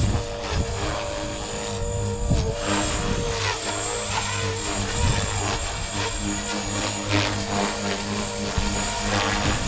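Electric RC helicopter (Blade Fusion 360) in flight at idle-up headspeed: the spinning main and tail rotors and motor give a steady buzz with several tones that waver and bend in pitch as it manoeuvres.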